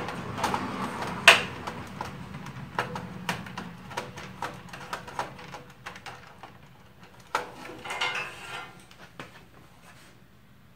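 Clicks and knocks of plastic against a steel computer case as a fan assembly is worked into its top bay: one sharp knock about a second in, then scattered lighter clicks.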